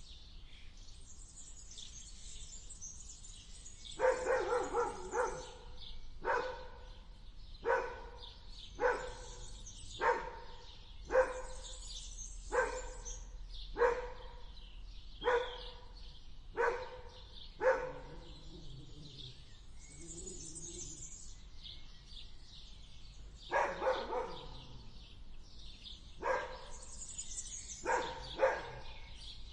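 A dog barking: a quick run of barks, then single barks at a steady pace of about one every second and a half, then a pause and further bursts of barks near the end. Birds chirp throughout, and a low growl sounds in the pause.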